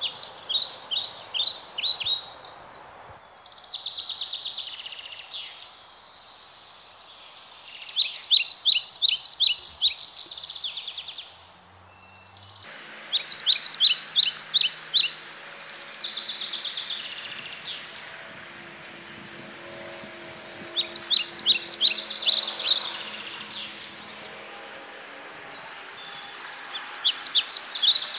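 A songbird singing: a fast run of sharp chirps about a second or two long, repeated every four to six seconds.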